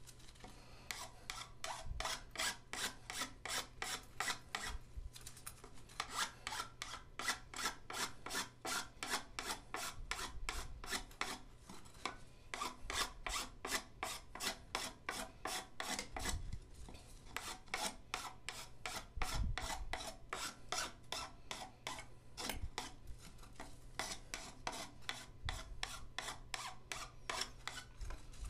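Hand file rasping back and forth across the cut end of a PVC pipe, about three strokes a second with a couple of short breaks, beveling the edge so it will slide into a tight-fitting 4-inch PVC pipe.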